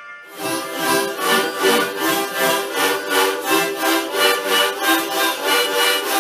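Many harmonicas played at once by a large group, sounding reedy chords in a steady pulsing rhythm of about three beats a second.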